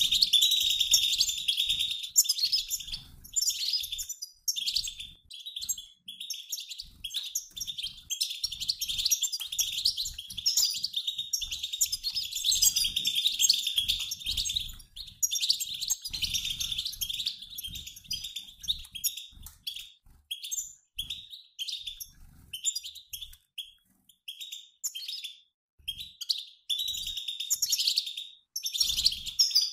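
A mixed flock of European goldfinches, males and females, twittering in a dense, rapid chatter of high chirps. The chatter thins out with short gaps about two-thirds through, then thickens again near the end. This is flock-flight chatter of the kind played to stimulate caged male goldfinches to sing.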